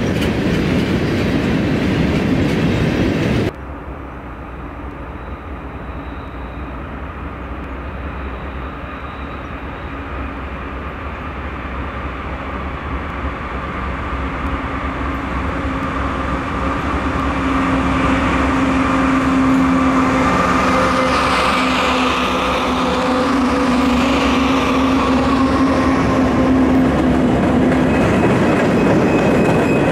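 Norfolk Southern freight train 11Z's diesel locomotives approach and pass, growing steadily louder over about fifteen seconds after a sudden cut from a louder rail sound, with a steady engine tone as they go by. Freight cars then roll past on the rails.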